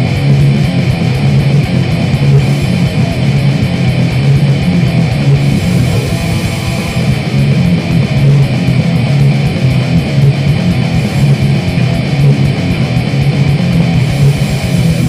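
Grindcore recording: heavily distorted electric guitar and bass played fast over rapid drums in a dense, unbroken wall of noise.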